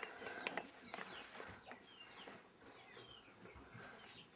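Faint chickens clucking and chirping in short scattered calls, with a few soft knocks in the first couple of seconds.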